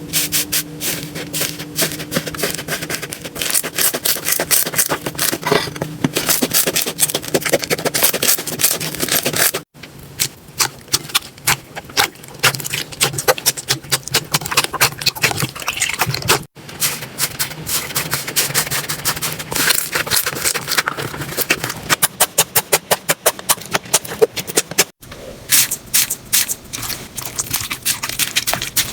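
Slime being squeezed, poked and stretched by hand, giving rapid crackling clicks and wet pops. It comes as several separate clips, each cut off suddenly by the next.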